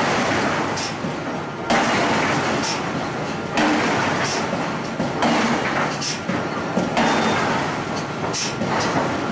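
Forging power hammer working a red-hot steel disc: a loud hissing, rushing noise that surges again about once a second.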